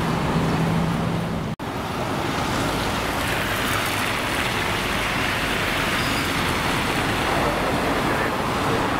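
Steady road traffic noise from a busy city street, with a low engine hum in the first second and a half. The sound cuts out for an instant about a second and a half in, then the traffic noise carries on.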